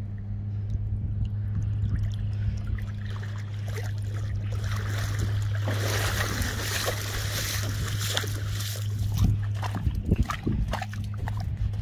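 A steady low hum throughout, with a few seconds of splashing, rushing water noise in the middle. Near the end come irregular crunching footsteps on gravel.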